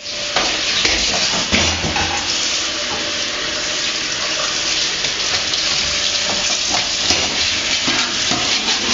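Kitchen tap running into a stainless steel sink while dishes are washed by hand, with a few clinks and knocks of dishes.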